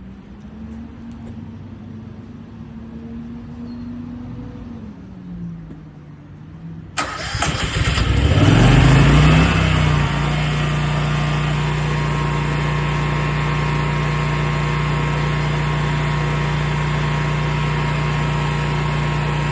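Westinghouse portable generator engine running quietly, its pitch dropping slightly about five seconds in. About seven seconds in, a much louder engine starts, revs up over a couple of seconds and settles into a steady run at governed speed.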